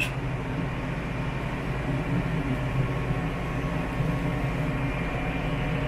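Massey Ferguson 4707 tractor's diesel engine running steadily under way, heard from inside the cab.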